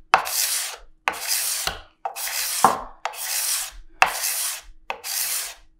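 Steel card scraper pushed across a curly maple board in six strokes, about one a second, each a scratchy hiss that opens with a sharp catch. It is cutting cleanly, leaving a smooth surface with no chip-out in the figure.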